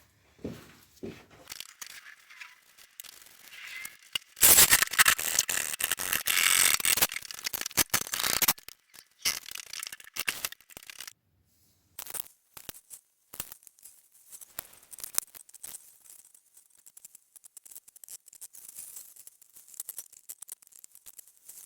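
Workshop handling noises: clicks and rattles, with a loud rough rushing noise for about four seconds in the middle, as the car is let down off its jack.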